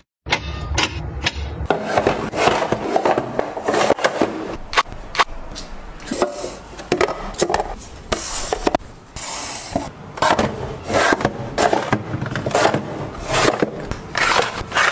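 Close-up handling of plastic bottles, packets and storage bins being set into place on shelves: a quick run of clicks, taps and knocks, with rustling and scraping in between.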